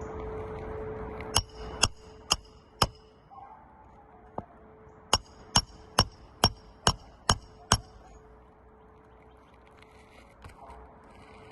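Sharp, ringing taps on a hard object: four strikes about two a second, a single faint tap, then seven more in a quick even run. Each strike rings briefly at the same high pitches, over a faint steady hum.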